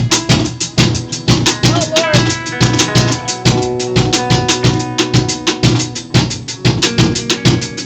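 Live band playing, with a drum kit keeping a fast, steady beat. Held instrument notes join about a second and a half in.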